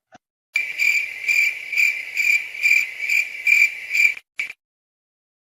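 Crickets chirping, the meme sound effect for an awkward silence. It is a high, steady trill that swells in pulses about twice a second, starts about half a second in and stops abruptly near the end.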